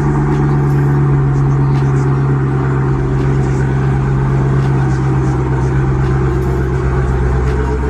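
Dodge Hellcat's supercharged 6.2-litre Hemi V8, with a cat-delete exhaust, idling steadily after a cold start.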